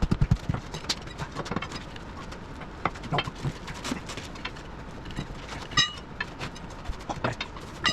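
Irregular knocks and clanks of tools and metal parts against a skid steer's rubber track and undercarriage, with a brief high-pitched ring about six seconds in.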